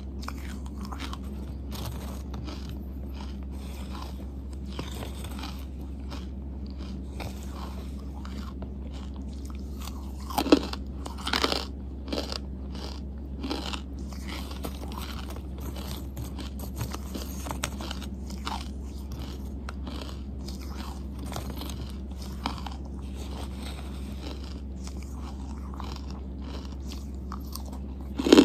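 Close-miked chewing and crunching of charcoal, with many small gritty clicks. There is a cluster of louder crunches about ten to fourteen seconds in and a sharp, loud crunch at the very end, all over a steady low hum.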